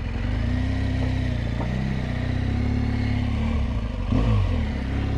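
BMW motorcycle engine running at low speed, its pitch wavering gently as the bike rolls slowly over rough ground. There is a short, louder bump about four seconds in.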